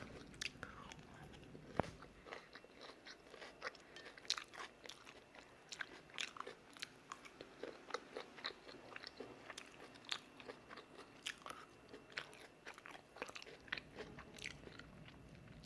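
Quiet, close-up chewing of stir-fried udon noodles with tofu and vegetables: irregular small crunches and wet mouth clicks.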